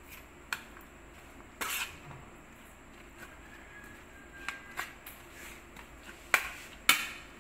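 Utensil clinking and scraping against a ceramic bowl as a salad of blanched fern shoots is tossed: scattered light clinks, with two sharp ones about half a second apart near the end.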